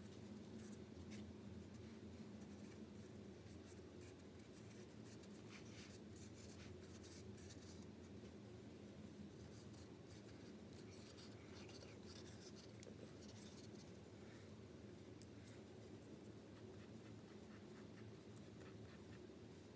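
Faint, irregular scratching and ticking of a white paint marker's tip drawing on paper, over a steady low room hum.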